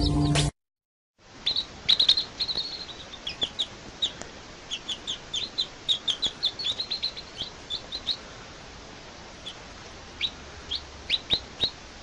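Baby chicks peeping: many short, high, falling cheeps in quick succession, thinning out to a few near the end, over a steady hiss. It starts after a brief cut from background music.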